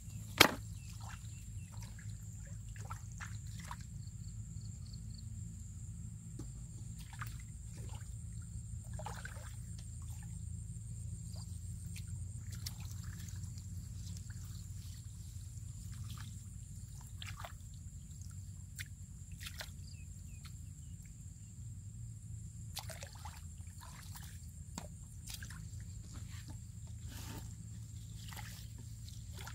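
Hands splashing and squelching in shallow muddy water, with scattered small splashes and drips over a steady low rumble. A single sharp knock comes about half a second in.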